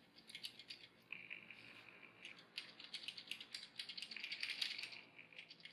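Lego Technic Corvette ZR1 model being rolled back and forth, its plastic drivetrain and moving pistons giving a faint, fast clicking rattle that grows busier in the second half.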